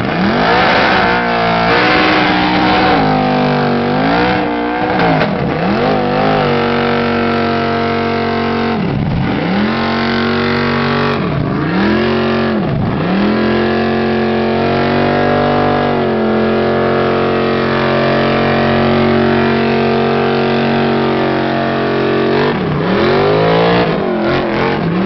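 Second-generation Chevrolet Camaro doing a burnout, its engine revved hard with the rear tyres spinning. The revs drop and climb again several times in the first half, are held high for about ten seconds, then fall away near the end.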